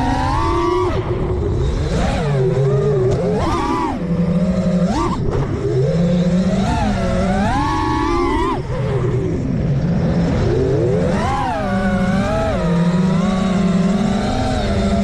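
Brushless motors of an FPV freestyle quadcopter whining, the pitch swooping up and down over and over as the throttle is pumped, with sudden drops and climbs every second or two.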